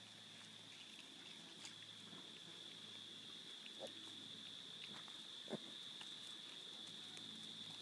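Piglets giving a few short, quiet grunts while rooting, the clearest about four and five and a half seconds in, over a faint steady high hiss.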